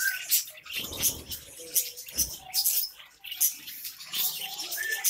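Flock of budgerigars chattering with rapid, high-pitched chirps and a few short whistles.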